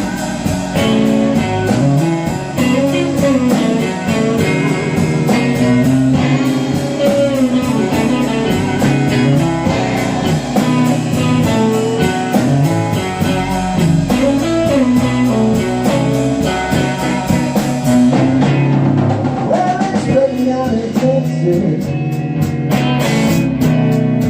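Band playing a slow blues in G: lead guitar with bent notes over drums keeping a steady cymbal beat. The cymbals drop out briefly about three quarters of the way through.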